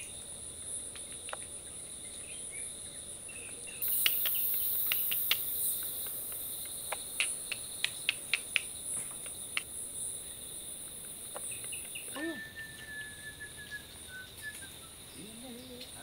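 Chorus of crickets and other insects, a steady high shrill at two pitches, with a still higher hiss joining for about three seconds from about four seconds in. Scattered sharp clicks between about four and ten seconds in, and a long, thin, slightly falling note from about twelve to fifteen seconds in.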